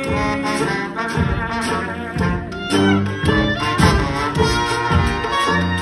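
Traditional New Orleans jazz band playing live: horns over a steady beat, with a tuba carrying the bass line.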